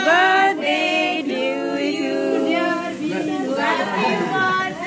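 Voices singing a melody with long held, gliding notes, more than one voice together.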